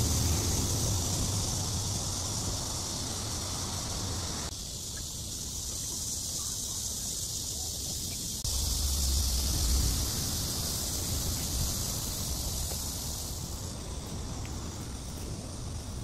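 Outdoor ambience without music: a steady high hiss with low wind noise on the microphone. The sound changes abruptly at cuts about four and a half and eight and a half seconds in.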